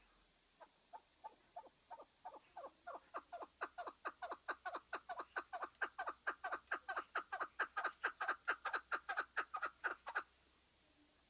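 A caged chukar partridge (lal keklik) giving its rallying 'chuck-chuck-chukar' call: a long run of short clucks, slow and soft at first, then faster and louder at about four to five a second, ending abruptly near the end.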